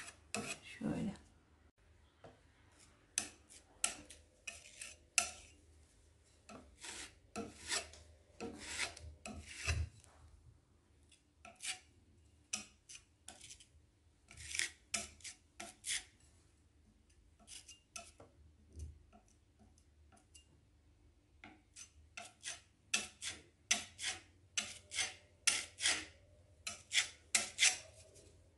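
Metal putty knife scraping over a wall as it spreads and smooths relief paste across filled nail holes. It goes in short strokes, in runs with pauses between, and the strokes come fastest near the end.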